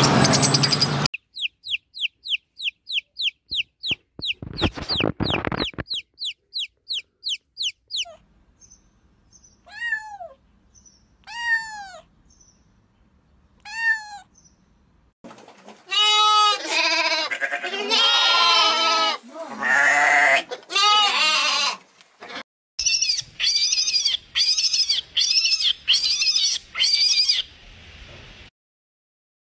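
A string of different animal calls. First come rapid high chirps and trills from caged finches, then a few short mews falling in pitch from a kitten. After that, a series of loud bleating calls, faster and shorter near the end.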